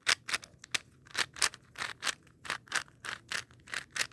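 A 4x4 puzzle cube being turned by hand: a quick run of plastic clicks and scrapes, about four a second.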